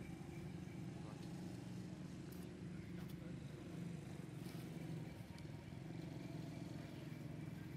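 Steady low background rumble, with a few faint clicks about two and a half, three and four and a half seconds in.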